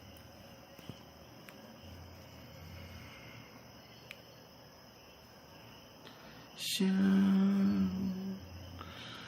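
Faint room tone with a thin high whine. About six and a half seconds in, after a short sharp hiss, a person hums one long low steady note, and starts another just before the end.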